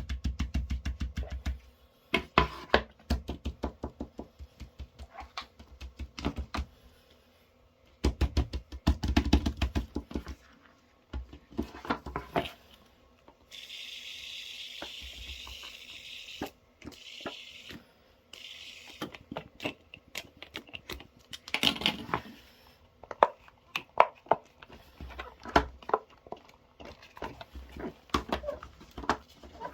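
Plastic fidget toys handled and pressed on a hard surface: fast runs of clicks and pops with scattered taps, and a stretch of hissing rustle in the middle.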